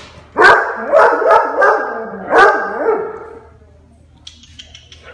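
Dog barking on the command to speak: about five loud barks in the first three seconds, then it goes quiet.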